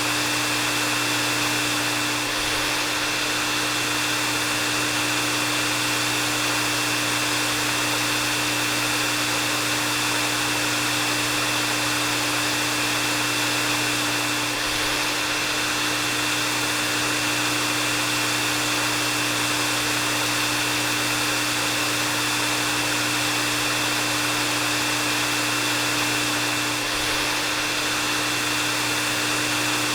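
Hair dryer running steadily: a constant rush of blown air over a low motor hum and a thin high whine. The sound dips slightly about every twelve seconds.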